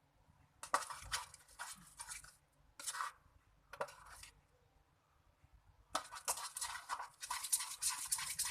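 Slime mixture being stirred in a bowl after slime activator is added: a utensil scrapes the bowl in quick, repeated strokes, in short runs with pauses and a longer run near the end.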